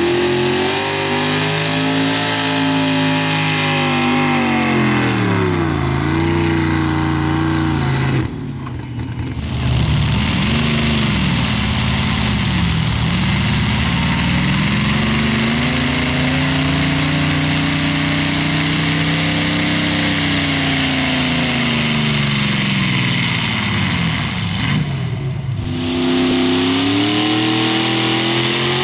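Pulling-truck engines at full throttle hauling a pulling sled, engine pitch swelling and sagging over several seconds as the load builds. The sound breaks off briefly about 8 seconds in and again near 25 seconds as it jumps to another truck's run.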